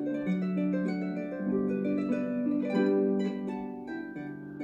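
Instrumental background music: a gentle melody of plucked-string, harp-like notes changing every fraction of a second.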